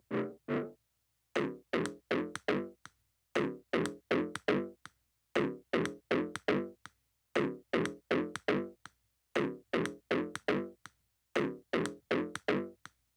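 Outro music: short, quickly fading synth notes in groups of four, a group about every two seconds.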